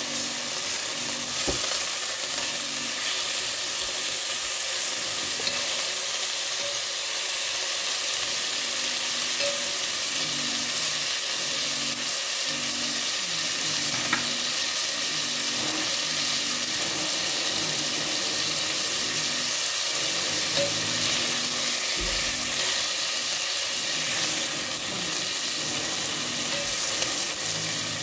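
Beef chunks searing in hot oil in a frying pan, a steady sizzle as they brown, with a couple of light clicks from metal tongs turning the pieces.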